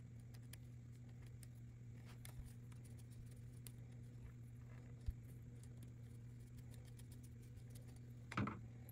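Faint small clicks and scrapes of a small screwdriver backing out the tiny screws of a metal cable clamp on a D-sub connector, over a steady low hum. A brief louder noise comes near the end.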